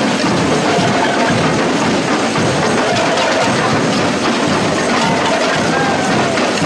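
Carnival parade percussion: a drum band playing a dense, steady beat, mixed with crowd noise.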